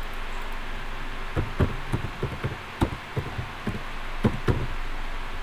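Computer keyboard keystrokes and mouse clicks: about a dozen irregular taps over three seconds, over a steady background hiss.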